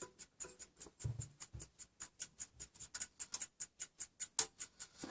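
Lever platform escapement of a c.1890 French two-train carriage clock movement ticking fast and evenly, about five ticks a second, with a soft low knock or two about a second in.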